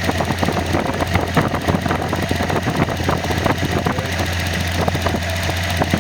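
Nissan L28ET turbocharged 2.8-litre inline-six idling steadily with light ticking over a constant low hum. It runs smooth on all six cylinders, its misfire cured by a new manifold gasket that ended a lean idle mixture.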